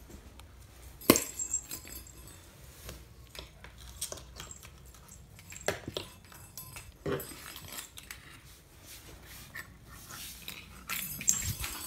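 A small cat toy knocking and clinking on a laminate floor as a cat plays with it: scattered light knocks and metallic clinks, the sharpest about a second in and a quick run of them near the end.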